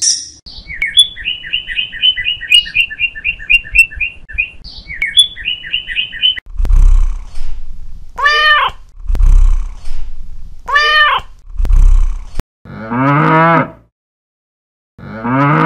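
A meerkat chirping rapidly, about four short calls a second, for the first six seconds. Then a cat meowing twice, with low rumbles between the meows. Near the end a cow moos twice.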